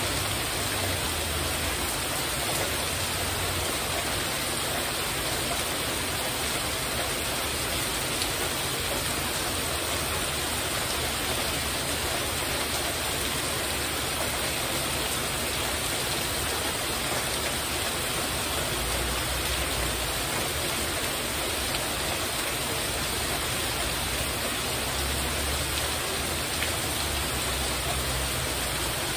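Heavy rain falling steadily on a porch roof overhead, a dense, even hiss that never lets up.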